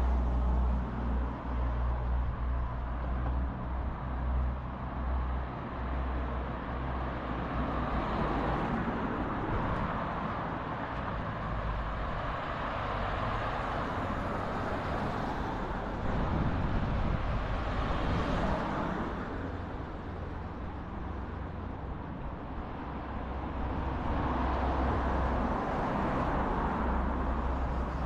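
Cars passing on a street one after another, their tyre and engine noise growing louder and fading as each goes by, over a low rumble.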